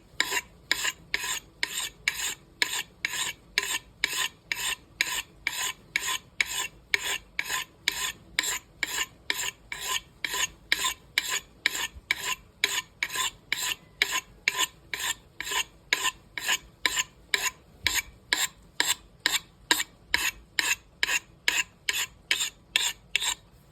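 Axe blade stroked against the coarse side of a sharpening stone in one direction, a steady run of short rasping scrapes about two a second. The strokes are grinding out a dent in the edge left by striking a rock.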